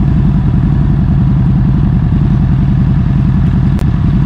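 Motorcycle engines idling at a standstill: a loud, steady, pulsing low rumble. It cuts out for an instant near the end.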